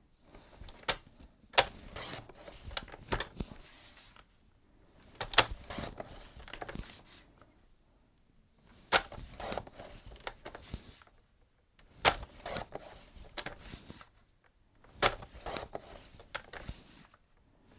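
Stampin' Up paper trimmer cutting strips of designer paper: the sliding cutter runs along its track in about five bursts a few seconds apart, each with sharp clicks and a short scrape, and paper is slid and shuffled between cuts.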